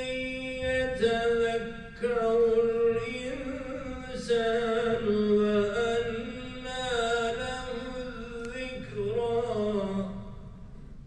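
A man's voice chanting an Islamic recitation in long held notes that waver and slide between pitches. The phrase fades away shortly before the end.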